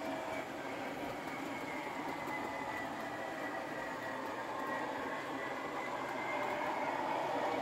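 OO gauge model train running past on the layout: the locomotive's motor whirring and the wheels running on the track, getting a little louder near the end as it comes closer.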